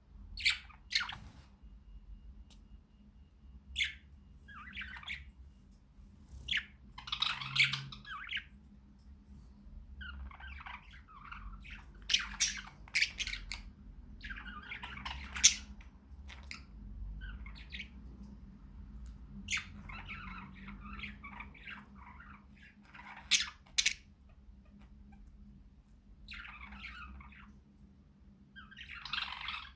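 Budgerigars chattering and warbling, broken by sharp squawks several times.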